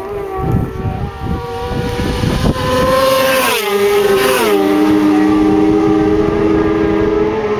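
Two racing motorcycles pass close by at high revs, one after the other. Each engine's note drops sharply in pitch as it goes past, about three and a half and four and a half seconds in. A steady high engine drone follows.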